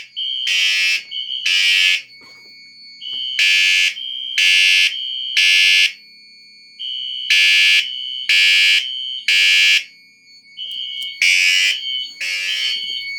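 Fire alarm horns sounding the temporal-3 evacuation signal: three loud, buzzy blasts, then a pause, repeating about four times. A high steady electronic tone runs through each group of three and drops out in the pauses.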